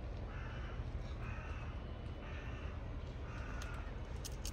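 Four short animal calls, each under half a second, spaced about a second apart, over a steady low outdoor background.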